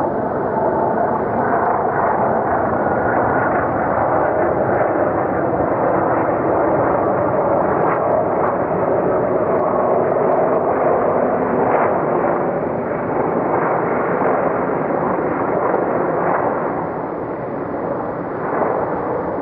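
Airliner landing noise: a steady, dense rushing noise of engines and airflow, with no clear pitch.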